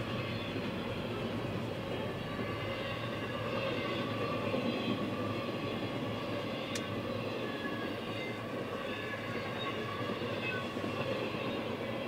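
CSX intermodal freight train rolling past, a steady rumble of wheels and cars on the rails, heard from inside a car. One sharp click about seven seconds in.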